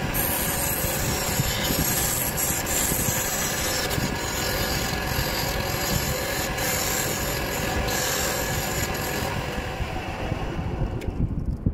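Wood lathe running while a hand-held turning tool cuts the spinning wood, a steady scraping rasp over the machine's hum. The scraping thins out near the end.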